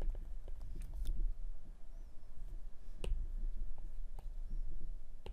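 Stylus tip tapping and scraping on a tablet's glass screen during handwriting: scattered light clicks, the sharpest about three seconds in, over a low steady hum.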